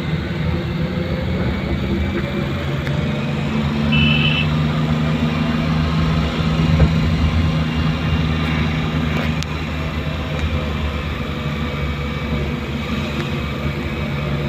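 Motor vehicle engine running with road noise, a steady low hum that rises slightly in level after a few seconds. A short high beep sounds about four seconds in.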